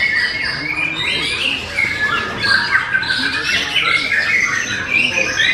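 White-rumped shamas singing, a dense, continuous jumble of overlapping whistles, chirps and harsh notes from several birds at once.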